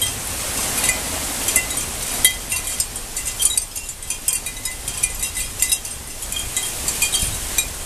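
Heavy thunderstorm rain pouring down with wind, and many light clinks ringing at a few fixed high pitches.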